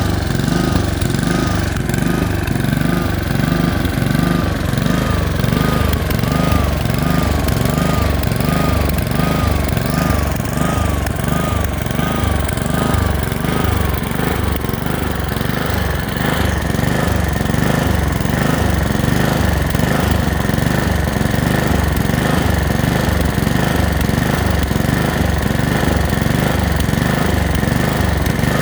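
Honda HRX217 lawn mower engine running and surging, its speed rising and falling in a regular cycle about once a second: a symptom of a dirty carburetor, which cleaning cured.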